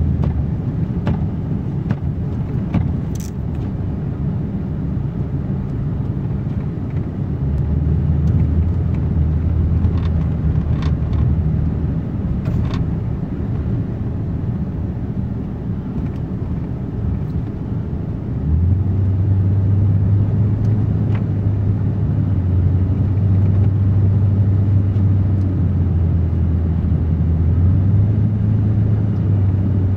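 Ford F-350 pickup truck driving in four-wheel drive, its engine and drivetrain making a steady low drone that steps up in pitch and loudness about two-thirds of the way through as the truck changes speed. Scattered light clicks or knocks come through, mostly in the first half.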